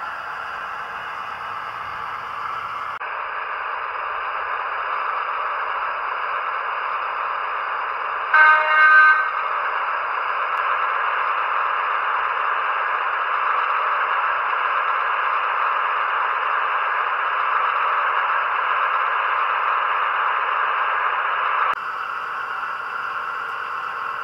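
Dapol Class 52 Western model locomotive's onboard sound decoder playing its diesel-hydraulic engine sound through the small speaker, a steady hissy engine note that gets louder about three seconds in and drops back near the end. A short horn blast in two quick parts sounds about eight seconds in.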